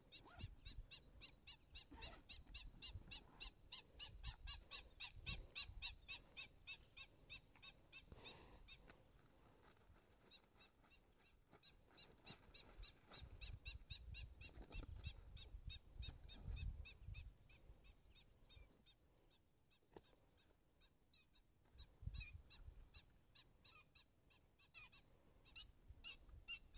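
Faint, rapid, high-pitched animal calls repeating about three to four times a second; they fade out about ten seconds in and return near the end, over a low rumble of wind.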